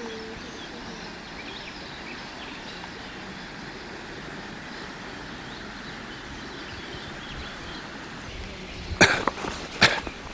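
Steady outdoor background hiss with faint, scattered high chirps, then two sharp knocks about a second apart near the end.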